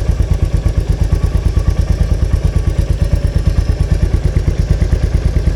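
Royal Enfield Meteor 350's single-cylinder engine idling with a steady, even thump, about eight or nine beats a second.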